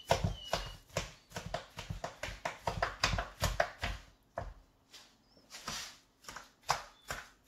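Kitchen knife chopping food in a quick run of sharp taps, about three or four a second, pausing briefly about halfway through before starting again.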